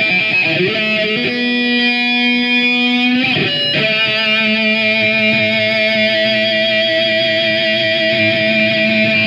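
Electric guitar playing long sustained notes, one held for about two seconds, then a quick slide in pitch and a new note that rings on to the end.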